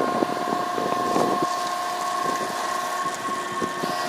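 Research ship's machinery running steadily: a constant hum with a high steady whine over a wash of noise. A few short irregular sounds come in the first second and a half.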